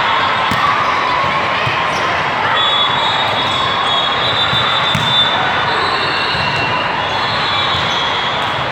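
Busy volleyball hall din: crowd chatter echoing through a large hall, with scattered thuds of volleyballs being hit and bouncing on the courts.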